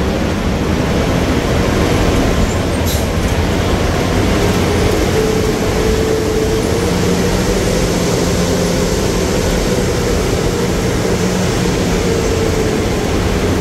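Bus engine and road noise heard from inside the cabin, running steadily while the bus goes down a steep ghat road. The engine note rises slightly around the middle and then settles back.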